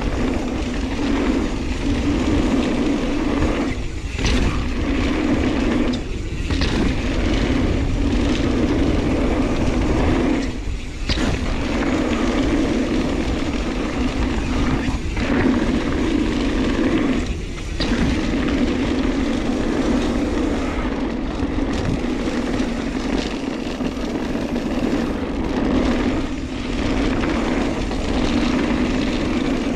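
Mountain bike rolling fast down a dirt and gravel trail: continuous tyre and riding noise with a steady low buzz that breaks off briefly about five times.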